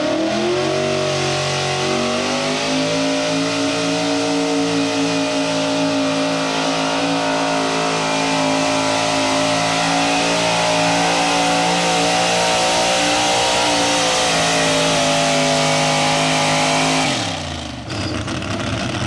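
Modified pickup pull truck's engine run at full throttle while it drags a weight sled. The revs climb in the first couple of seconds, then hold high and steady, and drop away sharply near the end.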